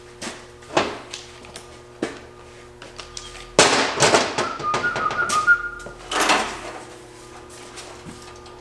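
Handling noises at a metal-working bench: a few clicks and knocks, then a louder stretch of metal clattering and scraping, with a brief ring, from about three and a half to six seconds in as a steel brake rotor and hub are moved about on the bench.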